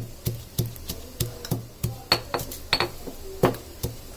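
Stone pestle pounding garlic cloves with crushed cumin and black pepper in a stone mortar: steady, sharp knocks about three a second.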